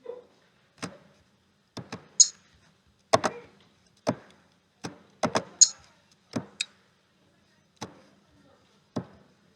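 About fifteen sharp clicks at irregular intervals, some in quick pairs, a few with a brighter snapping edge, over a faint steady hum.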